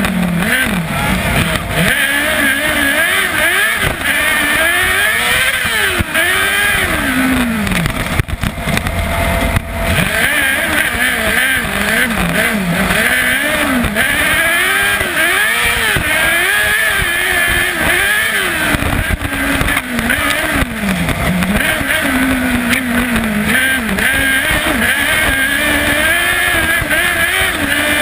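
Onboard sound of a kart cross buggy's 600cc Yamaha R6 inline-four motorcycle engine at racing speed. Its pitch keeps climbing and dropping as it revs up through the gears and backs off for corners, over a constant low rumble.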